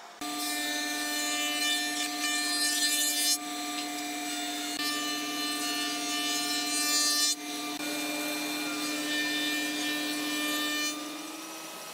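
A wood shaper (spindle moulder) running with a steady hum while a board is fed past its spinning cutter head, milling a groove-and-ridge joint profile; the cutting hiss is loudest in two stretches and stops about eleven seconds in, leaving the machine hum.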